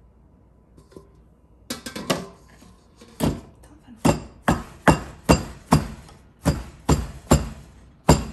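Wooden pestle pounding shredded green papaya in a clay mortar. The knocks start a couple of seconds in and settle into a steady beat of about two to three strokes a second.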